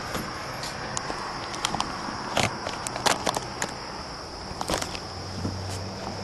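Irregular footsteps and small knocks of a handheld camera being carried across a porch, over a steady high-pitched background drone.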